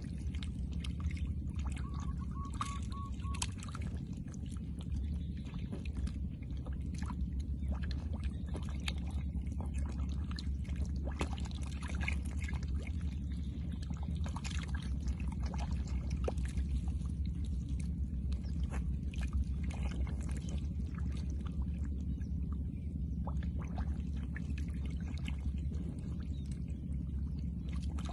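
Many catfish thrashing in a shallow muddy puddle, a continuous irregular patter of small wet splashes and slaps of water and mud, over a steady low rumble.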